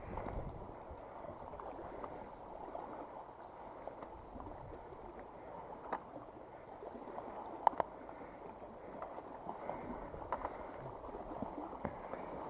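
Sea water lapping and sloshing against shoreline rocks, a steady wash, with a few sharp clicks, the loudest about eight seconds in.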